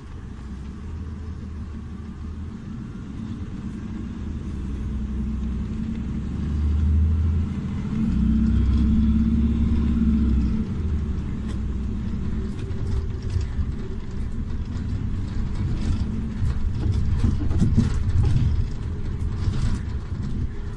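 Iveco Urbanway 12 Hybrid city bus running, with a low rumble and a hum that swell between about 6 and 10 seconds in. In the second half, rattles and clicks join the rumble.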